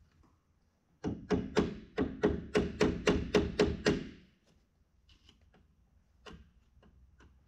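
A rapid run of about a dozen sharp metal taps, about four a second, as a hand tool strikes the clutch pack in the transmission's clutch drum, then stops. The taps are working at a pressure plate that was fitted too tight.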